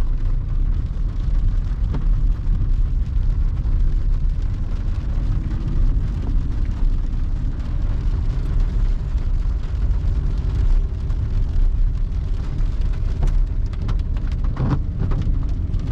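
Car in motion, heard from inside the cabin: a steady low rumble of engine and tyres on a wet road, with the car moving slowly in second gear.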